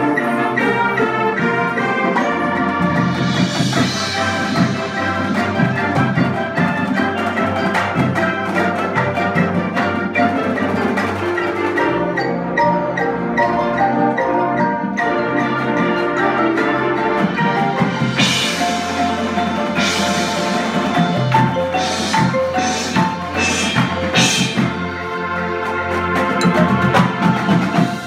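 Marching band playing its show opener: the front ensemble's marimbas and vibraphones over sustained wind and brass parts, including sousaphones. A run of sharp, ringing accents comes in from about two-thirds of the way through.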